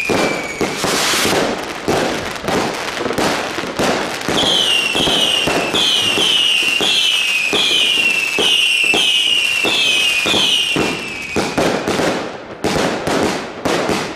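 Fireworks going off in quick succession: dense cracks and bangs with a run of short, falling whistles, about two a second, through the middle. The bangs thin out near the end.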